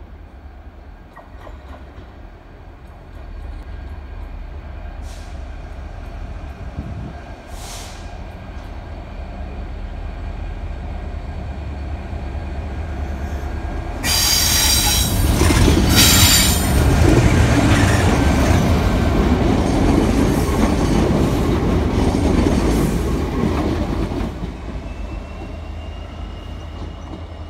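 GB Railfreight Class 66 diesel locomotive with its two-stroke V12 engine running steadily and growing louder as it approaches, then passing about halfway through with a sudden rise in level and a high squeal from the wheels for a couple of seconds. The freight wagons then rumble and clatter past for several seconds before the sound drops away near the end.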